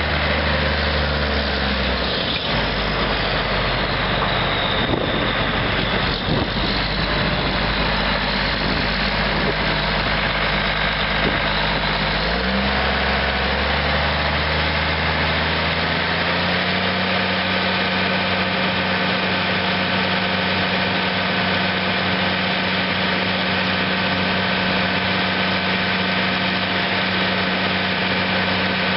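John Deere 9520's 12.5 L six-cylinder turbo diesel running steadily while the front dozer blade is moved. The engine note drops about two seconds in, climbs again about twelve seconds in, and holds a higher steady speed from about sixteen seconds.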